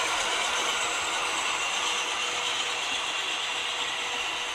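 Model train running on layout track: a steady, dense metallic clatter of wheels on rail and geared drive, easing slightly in the second half.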